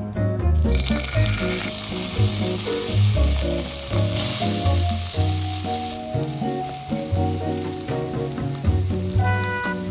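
Hot oil sizzling in a frying pan as chili bean paste (doubanjiang) and chopped green onions go in. The sizzle starts about half a second in, is loudest for the next five seconds, then dies down. Soft background music with a bass line plays along.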